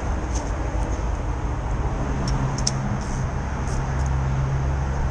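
Steady street traffic rumble with a low engine hum that strengthens about two seconds in, and a few light clicks.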